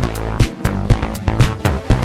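Electronic synthesizer music from an M-Audio Venom layered with a Waldorf Microwave XT: sharp electronic percussion hits about three a second over sustained bass and chordal synth tones.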